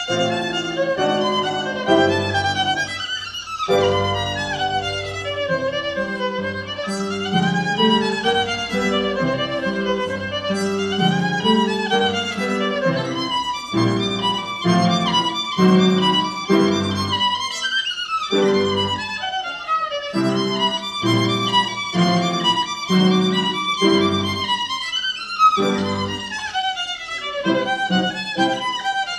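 A violin plays a melody, accompanied by an upright piano. About halfway through, the piano moves into repeated chords in a steady rhythm.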